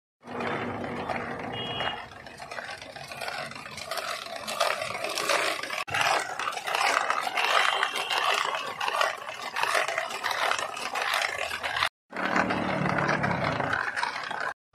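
Chunks of ice grinding and scraping against a galvanized metal canister as it is turned by its handle in a tub of ice, chilling the shikanji lemon drink inside.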